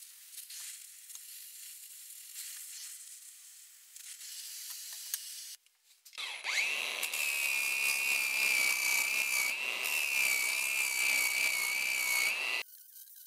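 Faint scraping and rubbing, then about six seconds in a power tool spins up with a rising whine. It runs loud with a steady high whine over a rough hiss and cuts off abruptly near the end.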